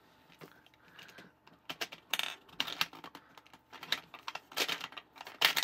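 Knob of a small plastic toy gumball machine bank being turned: a run of plastic clicks and rattles in several bursts starting about a second and a half in, the loudest near the end, as the mechanism works a gumball out into the chute.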